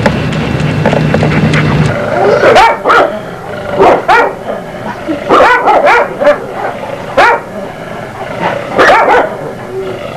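Caucasian shepherd dog barking repeatedly, starting about two and a half seconds in, in short volleys of one to three barks.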